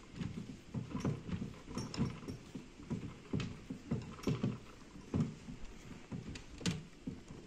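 Plastic chair leg being screwed by hand onto a threaded plastic joint: the plastic creaks and clicks in short repeated bursts, a few times a second, as it turns stiffly.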